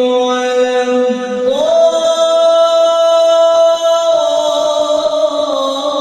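A man's unaccompanied voice chanting long held notes of Quran recitation (tilawat). The pitch steps up about a second and a half in, is held, and comes back down near four seconds.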